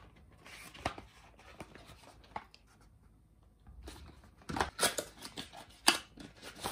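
Paperboard cosmetic boxes handled and opened by hand: scattered scrapes, taps and rustles of cardboard, busiest and loudest in the second half.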